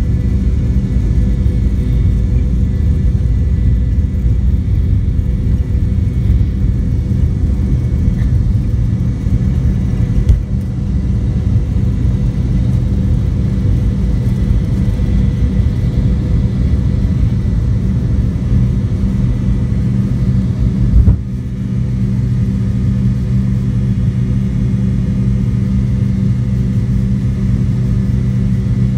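Cabin sound of a McDonnell Douglas MD-88 at takeoff, with its rear-mounted Pratt & Whitney JT8D turbofans at high power: a loud, steady rumble with a droning hum, running from the takeoff roll through lift-off into the climb. There are two short thumps, about a third and two-thirds of the way in. After the second thump the deep rumble eases.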